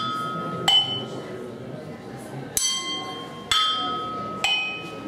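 Porcelain tableware mounted as a drum kit (cups, saucers, teapot) struck with wooden drumsticks: four sharp clinks at an uneven pace of roughly one a second, each ringing on with a clear, high pitch that fades.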